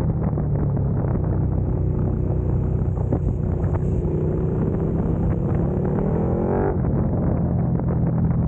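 KTM motorcycle engine running under a steady rumble of wind, slowing through a bend and then accelerating. Its note climbs from about two seconds in and cuts off sharply near seven seconds.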